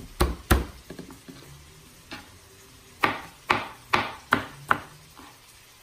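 Chef's knife chopping elephant garlic cloves on a plastic cutting board: two sharp knocks just after the start and one about two seconds in, then steady chopping at about two to three strokes a second from about three seconds in.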